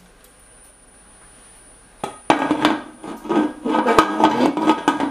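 Low room tone for about two seconds, then a quick run of metal clanks and scrapes with some ringing as the aluminium pressure cooker's lid is put on and closed.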